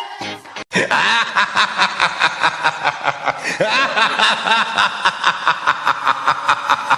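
Rapid, rhythmic snickering laughter, about five pulses a second, cutting in suddenly a little under a second in after a brief break in background music.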